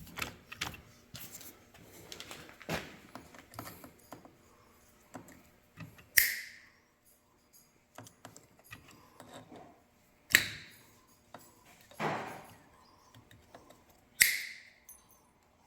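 Metal parts and hand tools clinking and tapping, with three sharp metallic strikes that ring briefly, spread through the stretch, and a duller knock between the last two.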